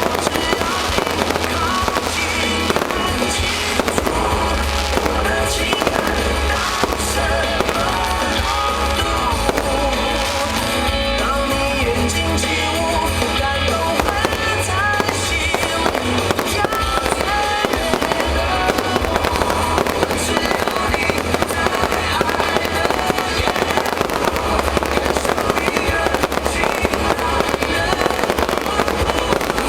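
Fireworks bursting and crackling in quick succession throughout, with music playing along.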